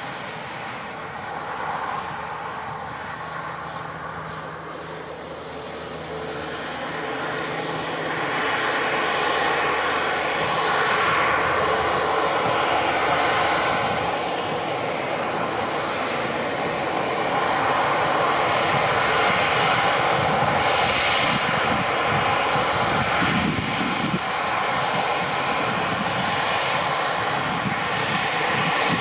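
Airbus A350-900's Rolls-Royce Trent XWB jet engines running at high power, a steady roar that grows louder about eight seconds in and stays loud.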